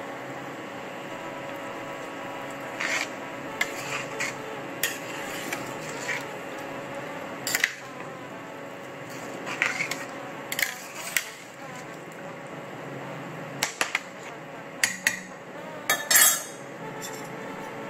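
Long metal spoon stirring rice and beans in a stainless steel pot, clinking and scraping against the pot at irregular moments, with a louder clatter near the end. A steady hum runs underneath.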